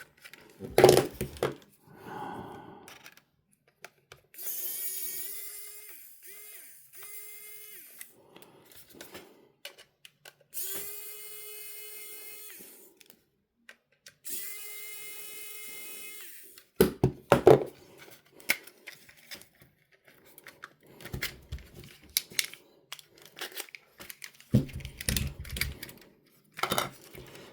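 Small electric motor whining at a steady pitch in five short runs of about half a second to two and a half seconds, each starting and stopping abruptly, with clicks and knocks of handling small parts before and after.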